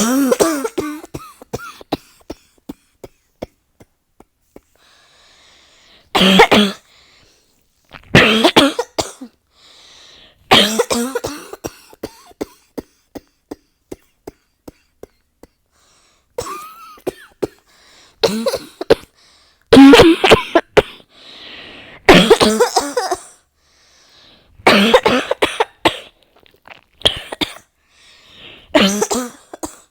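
A person in a long coughing fit: about ten bouts of coughing with short pauses between them. Between some bouts come runs of faint, quick clicks.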